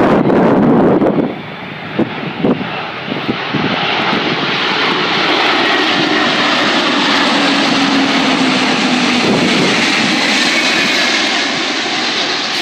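Antonov An-225's six Ivchenko D-18T turbofan engines on landing approach, passing low overhead. A loud, steady jet noise builds about four seconds in and holds, easing a little near the end. At the start, wind buffets the microphone, with a few sharp clicks about two seconds in.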